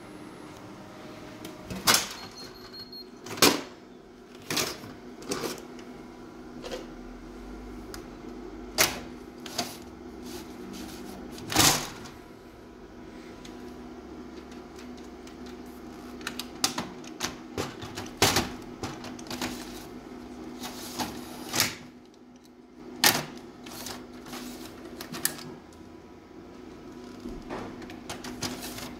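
Plastic clicks and knocks from the front cover and C-EXV47 drum units of a Canon imageRUNNER ADVANCE C250i copier being handled, a drum unit pulled out and slid back into its slot. The clicks come irregularly, a dozen or more sharp ones, over the copier's steady low hum.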